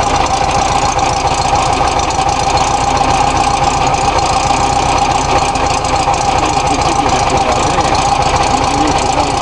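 VW T2 bus's 1600 cc air-cooled flat-four engine idling steadily, running again after seven years standing.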